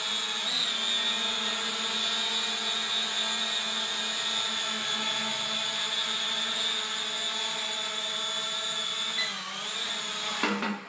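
Mini foldable quadcopter drone's four small motors and propellers running with a steady whine, the pitch dipping briefly about half a second in and again near the end before the sound stops.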